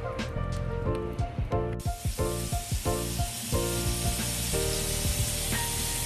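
Ribeye steaks sizzling on a hot grill, the sizzle starting suddenly about two seconds in, as the meat goes on. Background music with a steady beat plays throughout.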